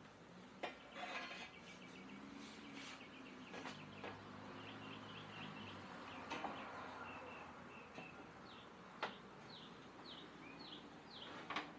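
Sharp, scattered knocks and clicks of a metal rocker-panel armor plate and clamps being handled against a Jeep Wrangler's rocker as the plate is fitted. Behind them is a run of short, high chirps, the later ones falling in pitch.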